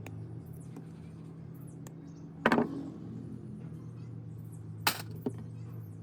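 Two sharp knocks, about two and a half seconds apart, over a steady low hum.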